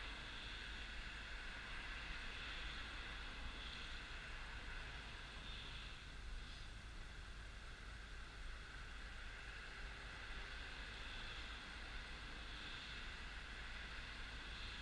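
Honda Dio scooter idling at a standstill, faint and steady, with a low engine rumble under an even hiss.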